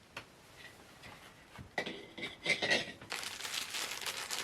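Funko Soda collectible can being opened by hand: after a quiet start, scraping and crinkling of the can and its packaging, turning into a steady rustle about three seconds in.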